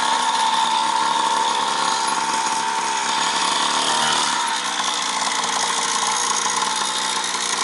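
Small 49cc two-stroke mini dirt bike engine running at a steady pitch under throttle, then easing off about four and a half seconds in as the bike slows to turn.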